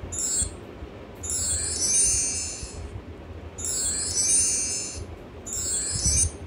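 Twinkling chime sound effects played through laptop speakers, a shimmering high tinkle that comes back roughly every two seconds as the slides advance.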